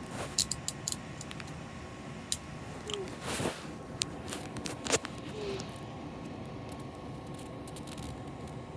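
Steel handcuffs being handled: scattered small metal clicks and rustles, with a sharper click about five seconds in, then quieter handling.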